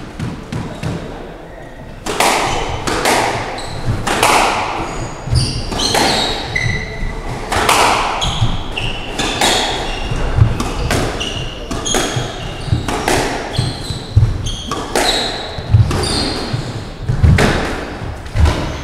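Squash rally: the ball struck by rackets and hitting the court walls again and again from about two seconds in, each hit ringing in the enclosed court. Short high squeaks of shoes on the wooden floor come between the hits.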